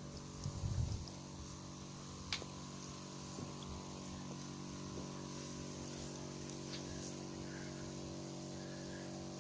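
Walk-behind tractor engine running steadily at an even speed, with one short click about two seconds in.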